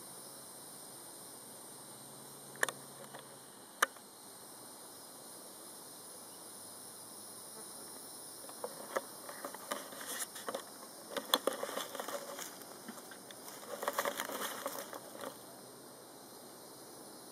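Close handling noise: two sharp clicks about a second apart, then a few seconds of irregular crackling and clicking, like dry pine needles and leaf litter being rustled as the camera is shifted, over a steady faint hiss.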